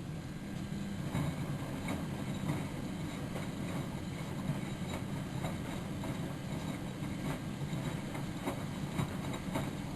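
Miele Novotronic W914 washing machine running a boil wash: a steady low motor hum with irregular clicks and knocks from the load tumbling in the drum.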